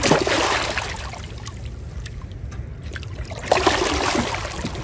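A large hooked striped bass thrashing and splashing at the water's surface as it is being landed, with a burst of splashing at the start and another about three and a half seconds in.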